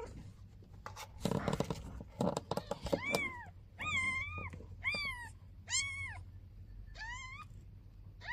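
Newborn kitten mewing: about five short, high-pitched cries from about three seconds in, each rising and falling in pitch. Before them, a stretch of rustling and shuffling as the mother cat shifts on cardboard.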